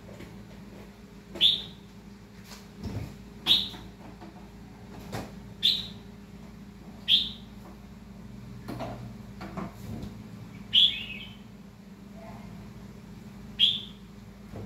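Caged red-whiskered bulbul calling: short, sharp, high notes repeated every second or two, about six loud ones, over a low steady hum.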